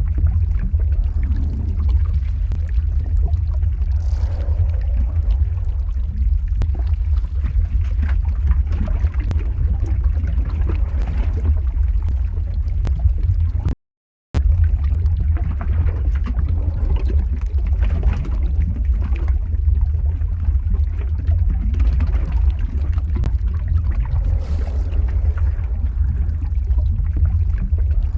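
Lava flow ambience: a steady deep rumble under a shifting, crackling haze, with scattered sharp cracks. It drops out completely for about half a second midway.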